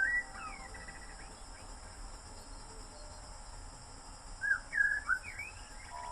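A songbird chirping: two short runs of quick chirps that rise and fall in pitch, one right at the start and another about four seconds in, over a faint steady hiss.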